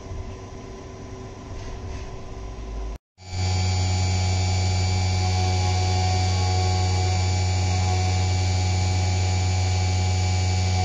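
CNC milling machine finishing an aluminium clutch cover under flood coolant: the spindle and end mill run steadily with coolant spraying. About three seconds in the sound breaks off for an instant, then comes back louder as a steady hum with a constant high whine.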